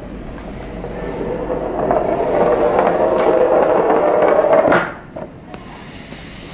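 Metal cylinder rolling along a tabletop: a rumble that grows louder for the first few seconds, then stops abruptly with a knock about three-quarters of the way in.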